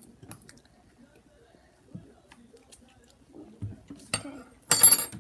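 Metal teaspoons clinking and tapping against a dish: faint handling clicks, a sharp clink just after four seconds in, and a loud ringing clank near the end.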